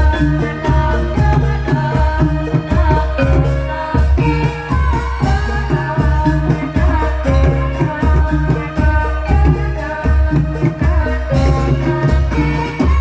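Loud live Javanese folk music for a dawangan performance: a deep drum beating a steady pulse under sustained melody lines.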